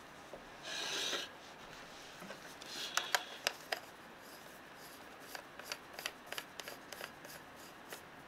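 Handling noise from an M42-mount 50mm f/2.8 lens and camera in gloved hands: a brief rub about a second in, a cluster of sharp clicks a few seconds later, then a run of lighter small clicks.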